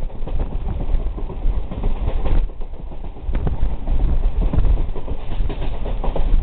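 Passenger train running at speed, heard from inside the carriage: a steady low rumble with rattling and irregular clacks of the wheels and carriage.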